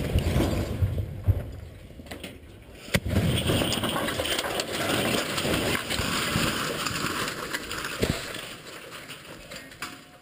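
The tail of a shaped-charge blast at close range, then a steel lattice tower collapsing. There are sharp crashes about a second in, about three seconds in and again near eight seconds, with a long loud stretch of falling steel, debris and guy cables in between.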